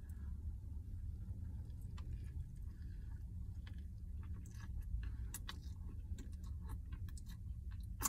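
A person chewing a large burger with the mouth closed: quiet, irregular wet clicks and smacks of chewing over a steady low hum.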